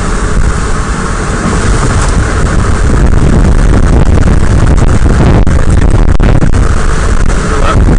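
Loud, steady noise inside a moving car: road and wind noise, heaviest in the low end, getting a little louder about three seconds in and close to overloading the recording.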